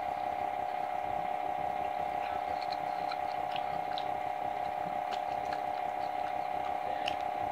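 A steady hum with a fixed tone runs throughout, with faint, scattered small crackles as crispy fried chicken is pulled apart by hand.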